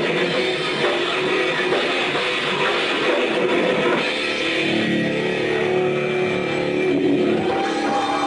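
Heavy metal band playing live: distorted electric guitars, bass and drum kit, then a chord left ringing from about halfway through.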